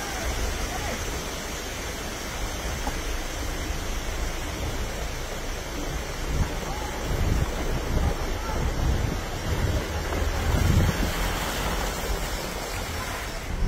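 Steady rushing and sloshing of floodwater around a vehicle driving through a flooded road, with wind rumbling on the phone's microphone.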